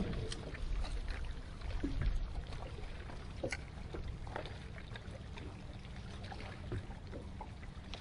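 Water lapping and splashing at the side of a bass boat under a steady low rumble, with scattered small splashes as a hooked bass is brought to the landing net.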